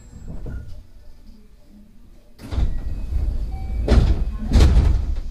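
Sliding passenger doors of a 223 series electric train working at a station stop: a rush of air and noise starts about halfway through, with two heavy thuds close together near the end, over the low rumble of the stopped train.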